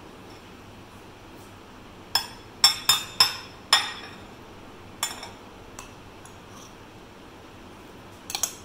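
Metal spoon clinking against bowls as cheese is spooned into a glass salad bowl: five sharp, ringing clinks in quick succession, one more a second later, and a quick double clink near the end.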